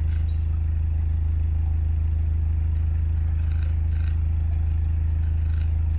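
Narrowboat engine running steadily at a low, even pitch.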